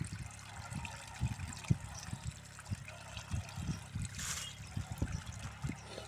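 Hands swishing and rubbing pieces of parboiled tripe in a steel bowl of water to wash it clean, the water sloshing and splashing unevenly. A brief, louder splash comes about four seconds in.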